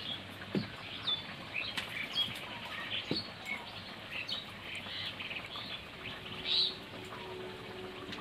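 Small birds chirping: many short, quick calls scattered throughout, over a faint steady background hiss.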